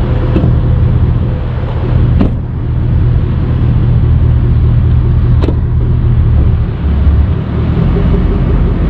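Ford F-550 tow truck's 6.7 V8 turbo-diesel engine running with a steady low rumble, with a couple of short knocks about two and five seconds in.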